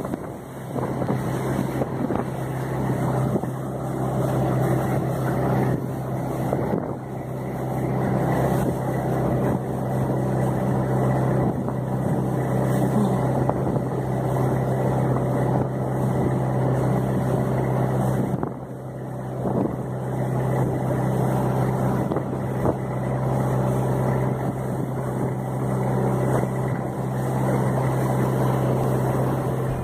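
Engine of a wooden river passenger boat running at a steady cruise, a constant low drone with water rushing along the hull. The sound dips briefly about two-thirds of the way through.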